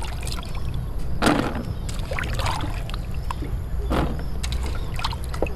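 Hands sloshing jackfruit seeds around in a pot of water and scooping handfuls out, with a few short splashes and drips, the strongest about a second in, near the middle and about four seconds in.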